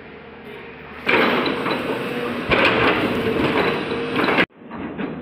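JCB tracked excavator at work, digging sand out of a steel railway goods wagon. A loud, harsh mechanical noise starts suddenly about a second in, grows louder partway through, and cuts off abruptly near the end.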